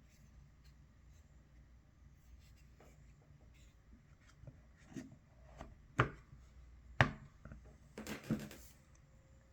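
Handling sounds of small objects on a hard surface: a few light taps, then two sharp clicks about a second apart, and a short rustling scrape near the end.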